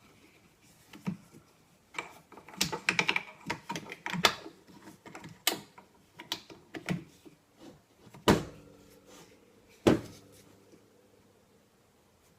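Irregular clicks, scrapes and knocks of metal stock parts being handled while the stock's screw is tightened on a Mossberg 500 shotgun. Near the end come two sharp metallic knocks, each ringing briefly.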